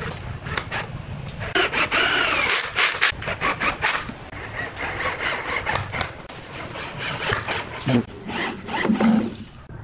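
Corded power drill driving long wood screws into pine pallet battens. The motor whine rises and falls with the trigger while the screw creaks and squeals as it bites into the wood, in repeated bursts. Near the end the drill bores into a wooden post.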